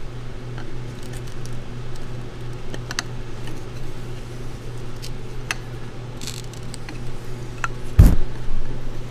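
Small flathead screwdriver prying the dust seal out of a Showa motorcycle fork: scattered small metal clicks and scrapes, then one louder knock about eight seconds in, over a steady hum.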